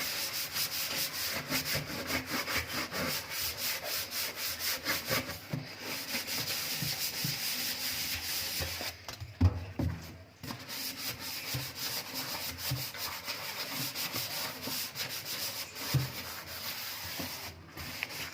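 Scouring sponge scrubbed rapidly back and forth over stainless steel in a kitchen sink, a steady scratchy rubbing. It pauses briefly about halfway through and again near the end, with a couple of soft knocks.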